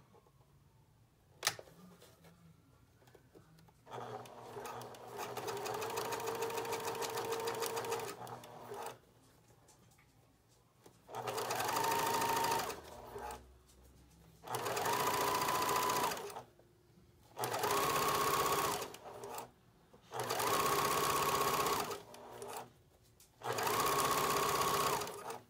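Electric sewing machine stitching a strap in six runs with short pauses between: a first run of about five seconds, then five shorter runs of one to two seconds each. A single sharp click about a second and a half in.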